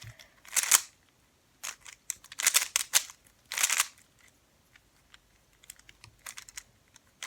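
A plastic Rubik's Cube being turned fast in a speed solve, its layers clicking and clacking as they snap round. The clicks come in quick runs through the first four seconds, then turn lighter and more scattered.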